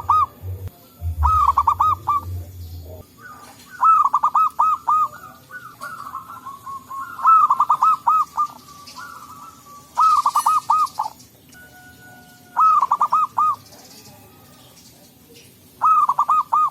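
Zebra doves (local perkutut) cooing: loud phrases of quick rolling, bouncing coos, repeated every two to three seconds, with phrases overlapping near the middle as birds answer one another.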